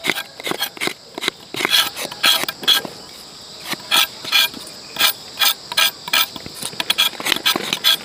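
Machete blade scraping the peel off a freshly dug cassava root in quick, uneven strokes, two or three a second.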